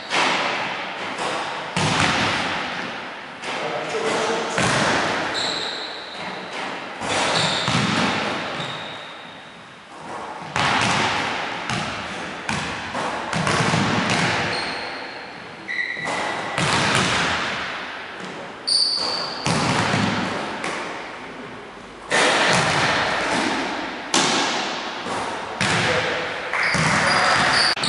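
Basketballs bouncing and thudding on a hardwood gym floor, every second or two, each hit echoing through the hall, with a few short high squeaks of sneakers between them.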